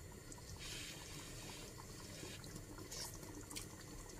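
Thick coconut-cream chicken curry simmering in a pan: a faint hiss and bubbling that swells and fades in patches.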